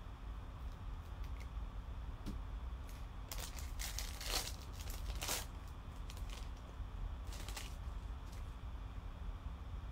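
Plastic wrapper of a Topps baseball card pack crinkling and tearing as it is ripped open, in a cluster of crackling rustles about three to five and a half seconds in and a shorter one near seven and a half seconds. Faint light ticks of cards and plastic sleeve being handled come before it.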